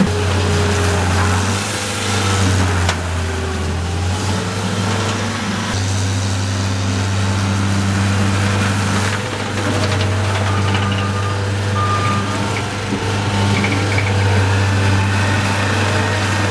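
Diesel engine of a 2012 John Deere 323D compact track loader running steadily, with fainter tones shifting in pitch above it as the machine works.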